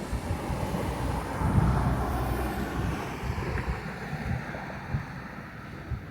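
Wind rumbling on the microphone over a steady wash of water waves and distant road traffic, the hiss easing off about halfway through.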